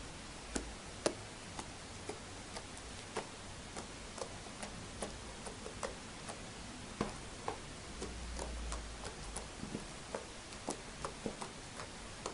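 Iceberg slime being pressed and poked with the fingers, giving crisp, irregular clicks a few times a second: a very clicky slime. A steady hiss sits beneath the clicks.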